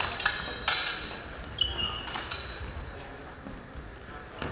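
Steel training longswords clashing: a few sharp metallic clacks in the first two seconds, one leaving a brief ringing ping, then a quieter stretch before another hit right at the end.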